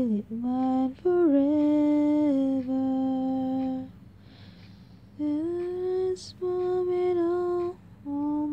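A woman humming a slow melody on her own with no accompaniment, in long held notes, pausing for about a second midway.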